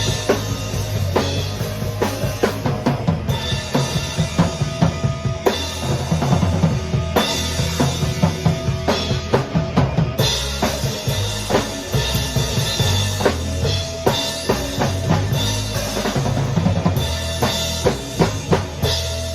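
A band playing a song: a drum kit keeps a steady beat of kick and snare hits over a bass line. The drum hits stop just before the end while the rest of the music keeps going.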